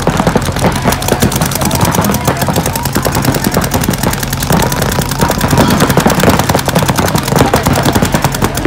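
Many paintball markers firing at once in rapid, overlapping streams, a dense unbroken popping of shots across the field.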